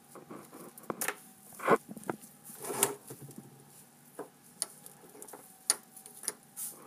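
Irregular clicks, knocks and rustles of things being handled on a wooden table, the loudest a sharp knock about a second and a half in. A faint steady high hum runs underneath.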